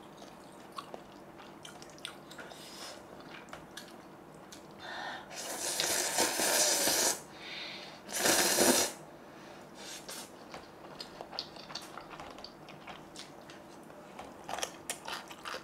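A person slurping ramen noodles twice, a long slurp about five seconds in and a shorter one about a second later, with small chewing clicks in between.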